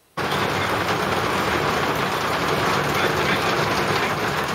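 Hail pelting down steadily on a roof, a dense, even patter that starts suddenly.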